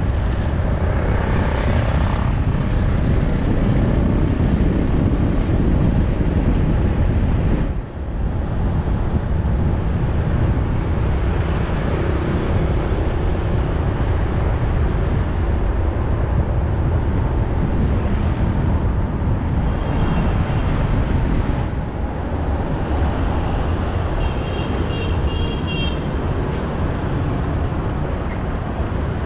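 Steady road and traffic noise from a vehicle driving through city streets, with the rumble of engine and tyres. There is a brief drop in level about eight seconds in, and a few short high-pitched tones around twenty-five seconds in.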